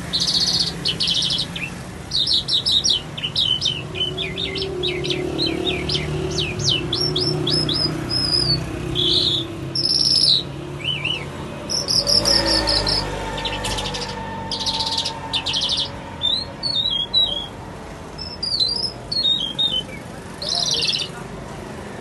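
A caged lark singing a long, varied song of rapid down-slurred notes, chirps and buzzy trills, with hardly a pause. A low rumble sounds briefly about halfway through.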